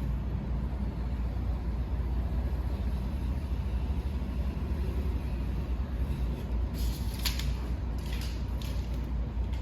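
Steady low rumble, with a few short, high hissing scrapes a couple of seconds before the end.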